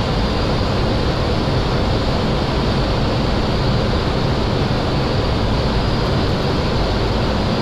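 Steady rushing flight-deck noise of a Boeing 737 on short final approach: airflow over the nose and the engines at approach power, even throughout with no sudden events.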